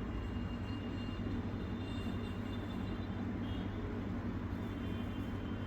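Steady low background hum with no distinct clicks or knocks.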